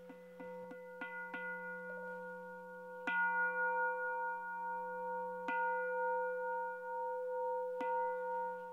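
Bowl-shaped Buddhist prayer bell struck: a run of light taps, then three strong strikes about two and a half seconds apart, each ringing on with several sustained tones. The strikes signal the start of the group sutra chant.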